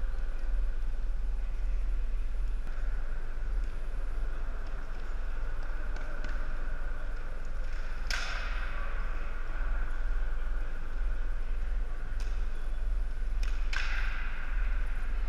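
Floor hockey play in a reverberant gymnasium over a steady low hum: a few light clicks, and two sharp knocks from sticks or ball that ring out in the hall, one about halfway through and one near the end.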